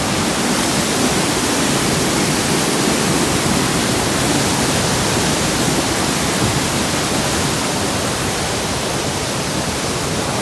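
Flood-swollen river pouring over a dam, a loud steady rush of water.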